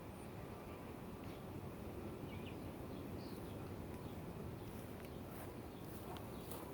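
Outdoor ambience dominated by a steady low rumble of wind buffeting the microphone, with a couple of faint, short bird-like chirps in the middle.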